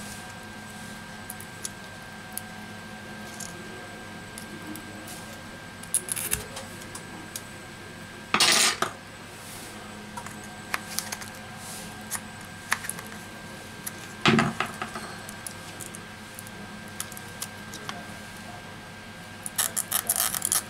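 Small clicks and scrapes of a metal spudger and hands working at a glued-in smartphone battery, with two louder scrapes, one about eight seconds in and one about fourteen seconds in. Near the end comes a fast crackling as the battery's adhesive pull strip is stretched out from under it.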